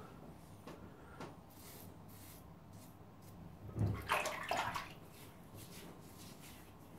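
Water splashing and sloshing in a bathroom sink for about a second, about four seconds in, after a few faint short scrapes.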